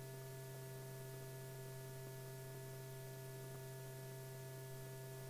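Steady electrical hum with faint hiss, the background noise of an old film soundtrack; no other sound.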